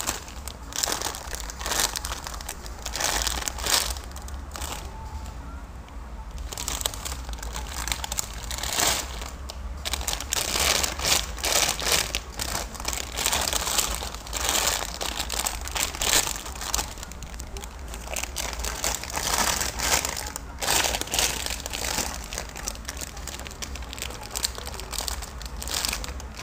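Plastic packaging crinkling as it is handled close to the microphone, on and off, with a low steady hum underneath.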